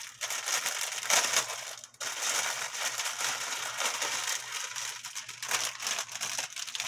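Clear plastic packaging crinkling and rustling as it is handled and pulled off a grill set's fabric bag, with a brief pause about two seconds in.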